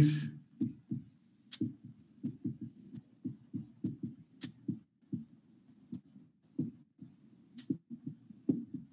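Marker pen writing on a whiteboard: a run of short, irregular strokes and taps, a few of them with a sharp click.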